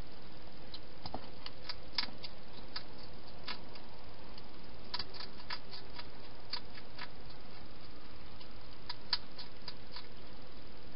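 Wild hedgehog eating from a bowl inside a plastic feeding box: irregular clusters of small crunching clicks from its chewing, over a steady hiss.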